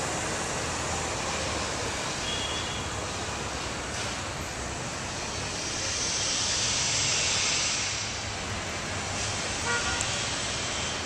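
City street traffic: a steady rush of passing vehicles that swells for a couple of seconds midway, with a short horn toot near the end.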